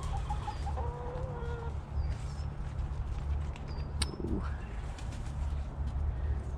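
Chickens making a soft, low wavering call, with a few short high chirps over a steady low rumble and a single click about four seconds in.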